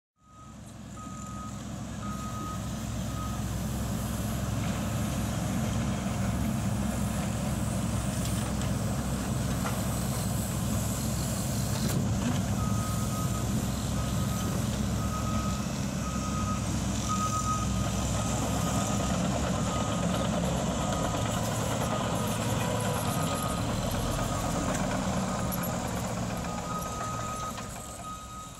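Heavy construction machinery running, a steady diesel engine rumble, with a backup alarm beeping about twice a second in spells: at the start, again through the middle, and near the end.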